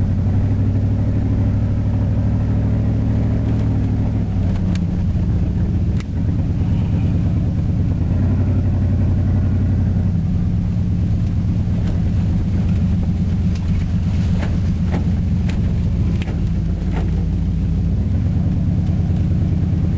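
1993 Chevrolet K1500's 305 cubic-inch V8 running as the truck drives along a rough dirt track, heard from inside the cab. The engine note shifts about four seconds in and again near the end, with a few sharp knocks from the cab over the bumps.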